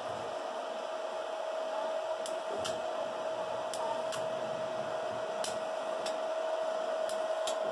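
Arc welding machine humming steadily at one pitch over a hiss, idling between tack welds, with a few faint sharp ticks scattered through.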